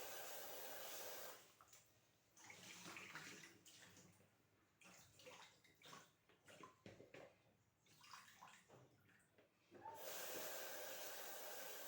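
Tap water running into a bowl of dried figs being rinsed, then shut off; in between, hands stir and lift the figs in the water with small irregular splashes, and the tap runs again about ten seconds in.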